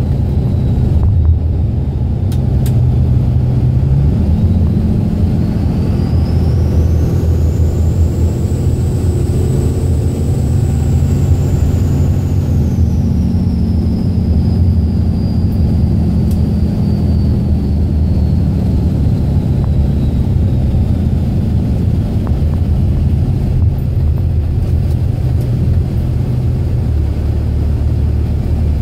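Dodge Ram's 24-valve 5.9 L Cummins inline-six turbo diesel running steadily under way, heard from inside the cab. A thin high whistle rises over several seconds, then falls away.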